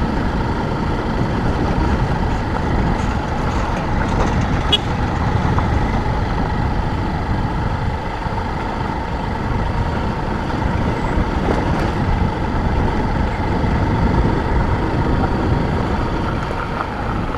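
Motorcycle riding at a steady pace, its engine and road rumble running evenly with a constant tone underneath.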